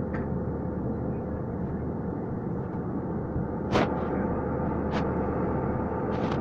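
Steady engine and airflow noise inside an airliner cabin, with a faint steady tone running through it. A sharp click about four seconds in, and two fainter ones near the end.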